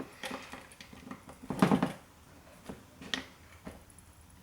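Small clicks and knocks of a screwdriver and bit being handled and tried against the screws of an old hard drive, with a louder cluster of knocks about a second and a half in.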